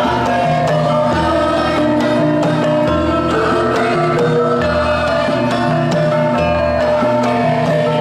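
Javanese gamelan ensemble playing: bronze metallophones and gong-chimes ring out a steady stream of struck notes over deep low tones that change about every second and a half, with a kendang hand drum beating.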